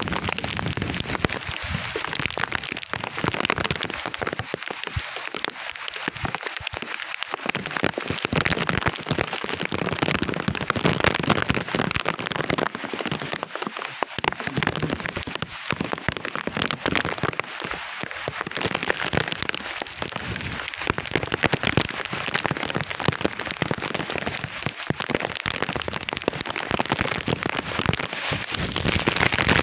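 Heavy typhoon rain pouring down in a dense, crackling patter. Gusts of wind buffet the microphone in low rumbling swells that come and go.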